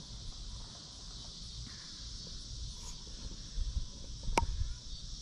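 Steady high-pitched insect chorus, with low wind rumble on the microphone and one sharp click about four seconds in.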